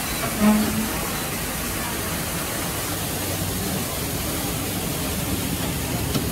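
Waterfall pouring and splashing right beside the open mine-train car: a steady rushing hiss. A brief low tone sounds about half a second in.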